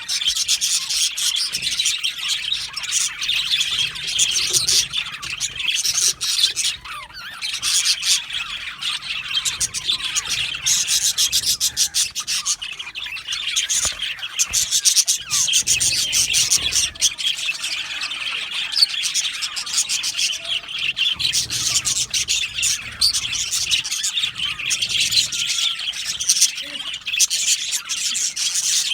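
A flock of budgerigars chirping and chattering together in a continuous dense chorus of overlapping warbles, chirps and squawks.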